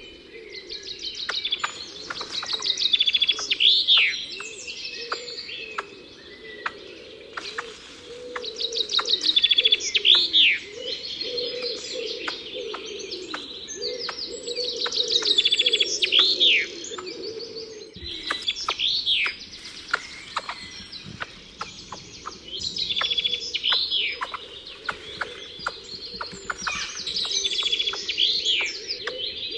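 Songbirds singing, with bursts of rapid trills and sweeping notes every few seconds over a continuous low wavering sound.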